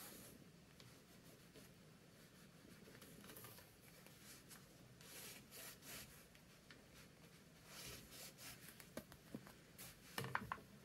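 Faint scratching strokes of tailor's chalk drawn along a ruler on soft-shell fabric, marking out lines, in several short runs.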